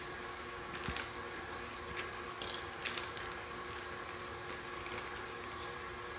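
Electric mixer motor running steadily with an even hum and whir, with a few light clicks and taps of kitchen utensils about one, two and three seconds in.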